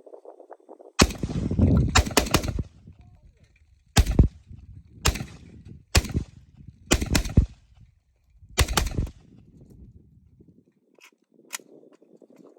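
A string of about ten gunshots over roughly eight seconds: a quick cluster first, then single and paired shots at irregular intervals of about a second.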